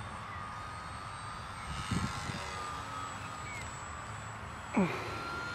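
Electric R/C model planes flying overhead: the steady high whine of their electric motors and propellers, its pitch drifting slowly upward. A short low rumble comes about two seconds in, and near the end there is a loud, quick downward-sweeping sound.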